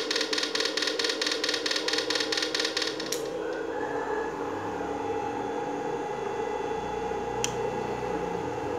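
Susan-1030SMP electric-fishing inverter buzzing with a rapid, regular pulsing while powering a 500-watt halogen test bulb. About three seconds in, the pulsing cuts off with a click, leaving a steady hum, and a single click comes near the end.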